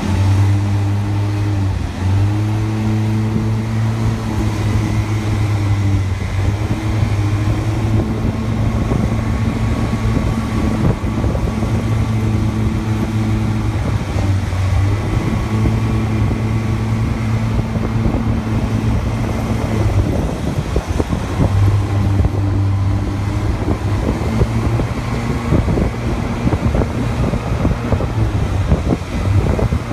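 Go-kart engine droning at a steady pitch while driving along a city street. At times it fades under rushing wind and road noise.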